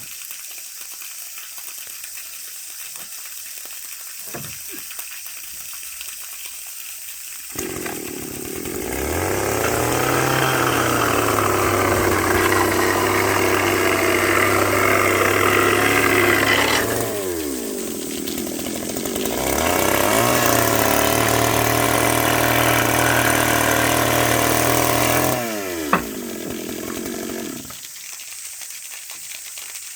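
A power saw spins up and runs steadily for about eight seconds, then winds down. It is started again a few seconds later and runs for about six seconds before winding down, with a sharp knock just after it stops.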